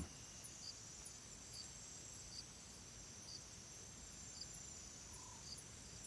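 Faint background ambience of insects: a steady high trill with a soft chirp repeating about once a second.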